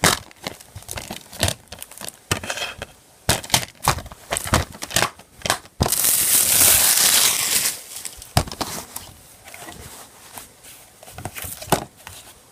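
Plastic DVD packaging being handled during an unboxing: crinkling with scattered clicks and knocks, and about a second and a half of continuous loud rustling or tearing about six seconds in.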